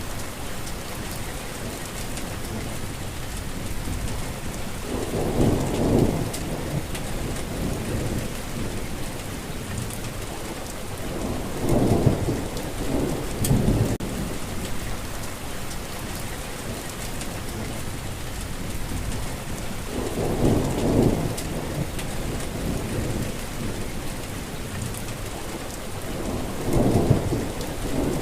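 Steady heavy rain falling, with low rolls of thunder rumbling up and fading away four times.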